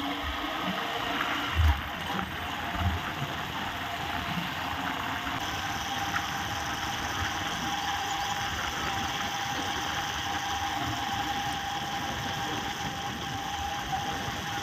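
A vehicle's engine running steadily while riding along a road, with road and wind noise and two low thumps about one and a half and three seconds in.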